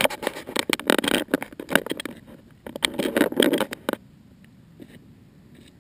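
Handling noise on a model plane's onboard camera: hands gripping and brushing the foam airframe close to the microphone, a dense run of rubbing, scrapes and knocks that stops about four seconds in as the plane is set down on gravel.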